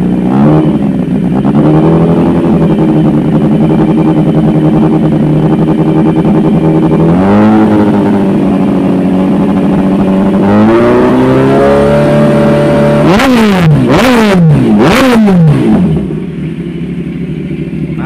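Kawasaki Ninja 1000SX inline-four engine revving through an SC Project screen-type slip-on muffler. It holds raised revs, steps up twice, then gives a string of quick throttle blips before dropping back to idle near the end.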